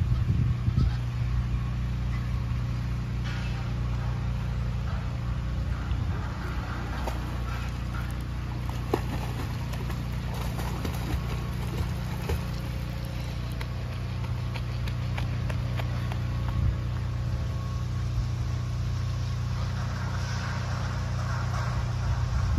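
A steady low mechanical hum, with light water splashing from a small child kicking and paddling in a pool. The splashing grows a little livelier near the end.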